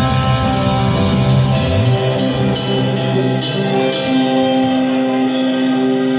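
Rock music: sustained electric guitar chords over drum and cymbal hits, with no singing.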